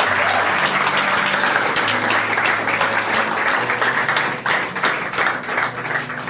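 Crowd applause, many hands clapping, over sustained low background music; the clapping thins out and gets quieter about four seconds in.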